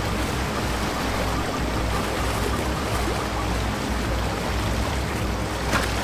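A wildebeest herd splashing through a river: a steady rush of churned water and spray.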